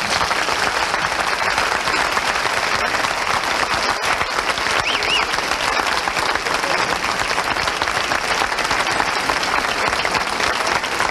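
Large audience applauding steadily, a dense sustained round of clapping at the end of a talk.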